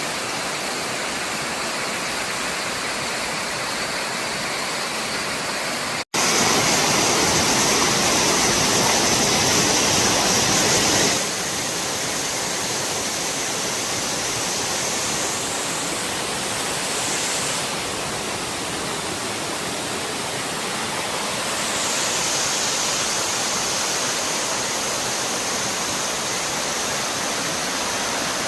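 Waterfall water rushing and splashing in a steady, loud roar of noise. The sound drops out for an instant about six seconds in, is louder for the next few seconds, and shifts in tone several times later on.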